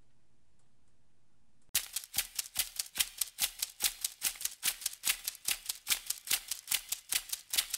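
Near silence, then about a second and a half in a rhythmic percussion shaker starts, about five sharp strokes a second, opening a music track.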